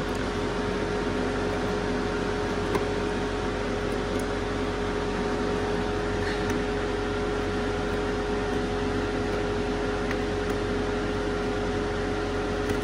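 Steady motor hum with one constant tone under an even hiss, with a few faint light clicks as loose plastic dash trim is handled.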